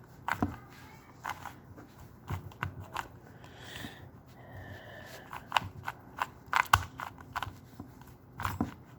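Plastic Rubik's Cube being twisted by hand: a string of irregularly spaced clicks and clacks as its layers are turned.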